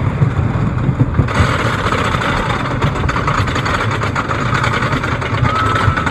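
Wooden roller coaster train starting up the chain lift hill: a steady rumble of the wheels and train on the track, with a higher clatter from the lift joining about a second in.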